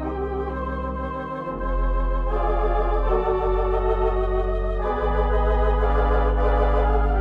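Organ accompaniment music: held chords over a deep bass, changing every second or two, with a wavering tremolo in the upper notes.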